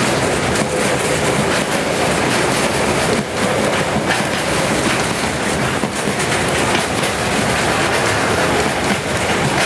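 Container flat wagons of a long freight train rolling past at speed close by: a steady, loud rumble of steel wheels on the rails.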